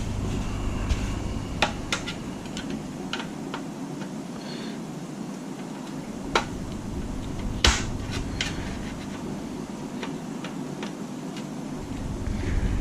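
Flathead screwdriver and loose parts clicking and knocking against the plastic case and metal shielding of a game console being taken apart: scattered sharp clicks, with two louder knocks in the second half, over a low rumble that fades out about a third of the way in and returns near the end.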